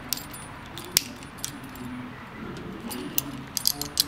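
Small steel cable hardware, a turnbuckle with its hook and the cable-loop bracket, clinking as it is handled. A few irregular sharp metallic clicks, bunched together near the end.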